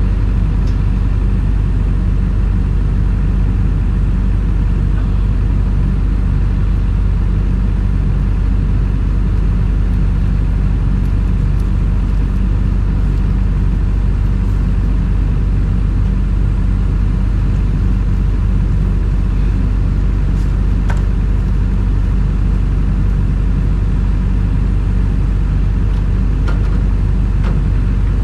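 Excavator engine running steadily at a constant speed, with a few faint clicks late on.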